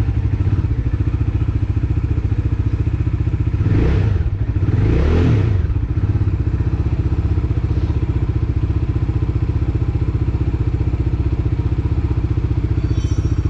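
Bajaj Dominar 400's single-cylinder engine idling steadily after a start, with two short throttle blips about four and five seconds in. The bike is on its first run after a workshop repair for tappet noise.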